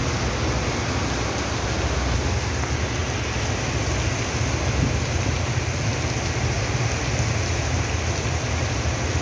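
Heavy rain pouring down steadily, a constant hiss with a low rumble underneath.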